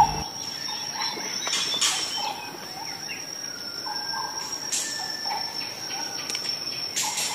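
Wild outdoor ambience: a steady high insect trill throughout, with short bird chirps and calls scattered over it.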